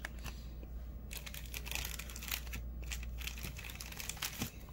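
Trading cards and their plastic pack wrapper being handled at close range: crinkling and rustling with many short, sharp clicks.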